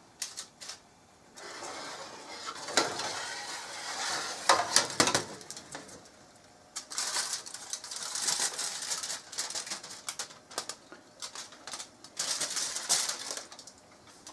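Aluminium foil being lifted off a roast and crumpled by hand: crackling, crinkling rustle with many sharp clicks, heaviest in the second half. A few knocks of a metal platter being moved onto a steel bench come in early on.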